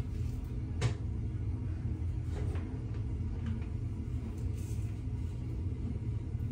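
Steady low room hum, with one sharp click just under a second in and a few faint taps as a flat iron is clamped on hair and twisted.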